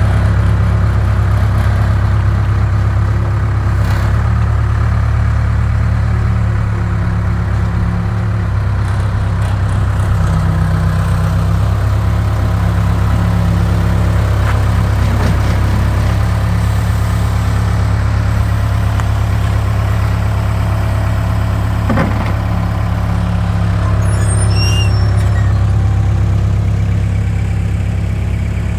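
Case 580 Super K backhoe loader's diesel engine idling steadily, with a deep, even drone.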